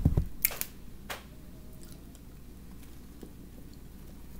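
Eating sounds from a steak torta sandwich being handled and bitten: a few short clicks and knocks in the first second or so, then faint mouth sounds.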